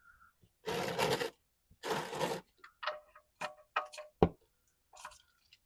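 Ratchet wrench turning the oil pan drain plug back in: two short runs of rapid ratchet clicking, then several separate sharp clicks, the loudest a little past the middle.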